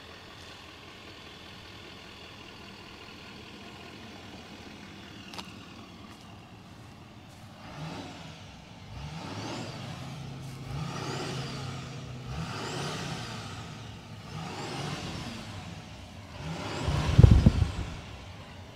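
6.6-litre Duramax V8 turbodiesel of a GMC Sierra 2500 HD idling steadily, then revved about six times. A whistle rises and falls with each rev. The last rev, near the end, is the loudest, with a heavy low blast heard close to the exhaust tip.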